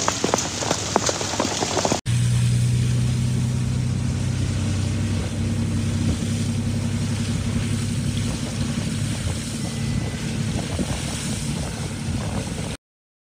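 Hailstones pelting the ground in a rapid patter of sharp hits. About two seconds in this cuts to a vehicle engine running with a steady low hum under road and wind noise, heard from inside the vehicle, until the sound cuts off abruptly near the end.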